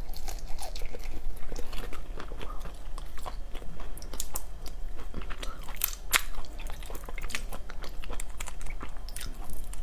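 Close-miked crunching of spicy mantis shrimp: the hard shells being cracked open and chewed, a dense run of sharp cracks and clicks with wet chewing between them.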